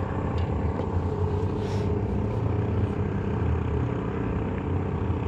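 Small boat engine running steadily at a constant speed.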